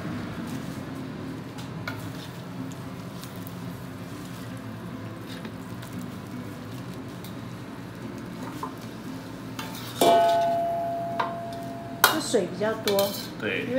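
Wok, metal ladle and a large stainless-steel bowl: a steady low hum for the first part, then about ten seconds in a sudden metal clang that rings on, then a quick run of scraping clatters as the ladle pushes the stir-fried topping out of the wok into the bowl.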